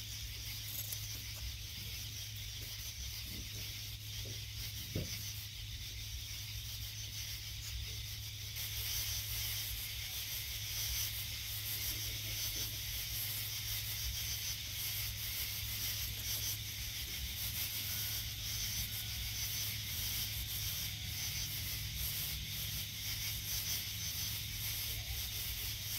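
Steady hiss with a low hum underneath. The hiss grows louder about eight and a half seconds in.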